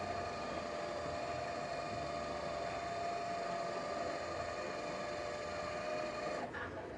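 A small electric motor running steadily with a constant pitched hum, stopping suddenly near the end.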